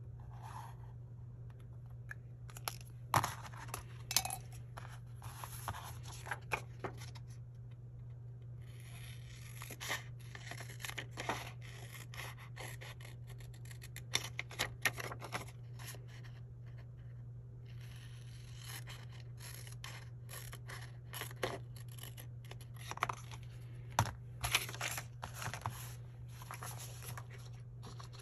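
Scissors cutting a sheet of paper in a string of snips, with the paper rustling and sliding on a tabletop and sharp taps as things are picked up and set down. A little pen writing on paper at the start.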